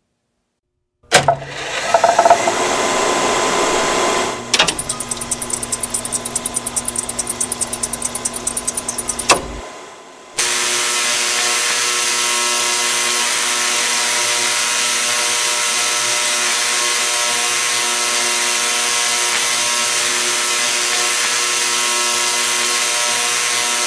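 Large 10 kVA bipolar Tesla coil firing: loud buzzing crackle of high-voltage arcs. It starts about a second in and runs as a short burst, then a stretch of rapid even pulsing, then after a brief drop near ten seconds settles into a long steady buzz.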